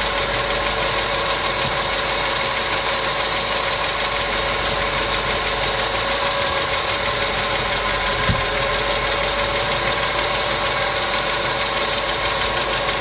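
Mercedes M111 supercharged four-cylinder engine idling with a rapid, even ticking, the tapping of hydraulic valve lifters.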